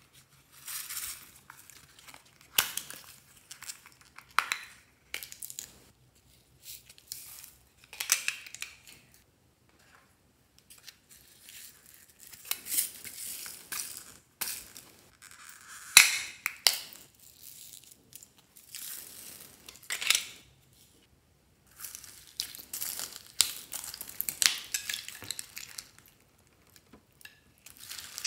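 Hands breaking up and working slime add-ins over a glass bowl: irregular crinkling, crackling and crunching in short bouts, with a few sharp clicks, the loudest about two-thirds of the way through.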